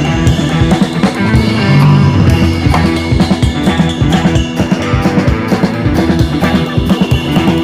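Background music: rock with a steady drum beat, bass and guitar.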